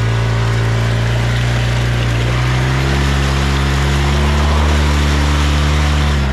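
Off-road vehicle's engine running under load as its lugged mud tires churn through water-filled mud ruts, with splashing over the engine noise. The engine note steps up about two and a half seconds in.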